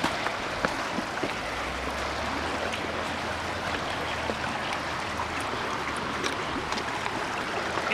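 The Klamath River flowing: a steady rush of running water, with faint scattered ticks.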